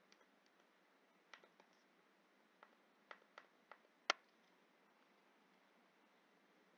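Faint clicks of a stylus tapping a touchscreen during handwriting, about eight light taps over a couple of seconds. A sharper click comes about four seconds in, over near silence.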